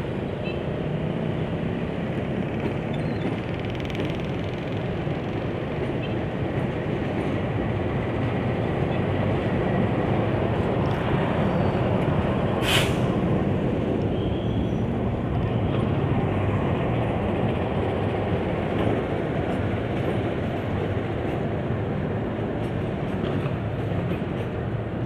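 CC 206-class diesel-electric locomotive running light along the station tracks. Its engine grows louder as it passes close by about halfway through, then eases off as it moves away. One brief sharp sound is heard about halfway.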